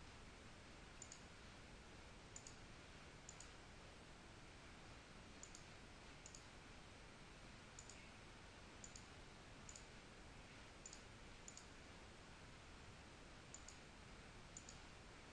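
Faint computer mouse button clicks, about a dozen at irregular intervals, each a quick double tick of press and release, over a low steady hiss.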